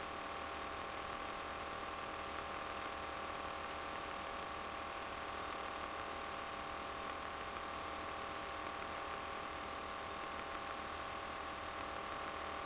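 Steady drone of a light aircraft's engine and propeller in flight, heard inside the RV-9A's cockpit, with a constant hum and no change in pitch.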